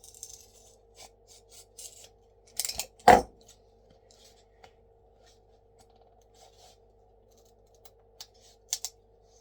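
A box cutter slicing and scraping at the thin wooden wedge strip of a DN4 beehive frame's top bar, with small clicks and scrapes and one loud, sharp knock about three seconds in. A faint steady hum sits underneath.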